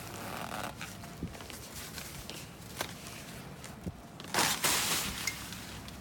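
Footsteps crunching and trudging through snow over a foot deep, with scattered small crunches and one louder, longer crunch about four and a half seconds in.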